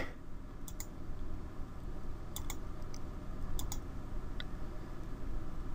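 A few faint computer mouse clicks, mostly in quick pairs, as the fill tool is clicked into the small gaps of lettering, over a low steady room hum.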